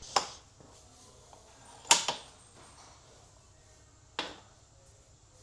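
Three short, sharp clicks and taps of hand tools and transmission parts being handled, the loudest a quick double knock about two seconds in.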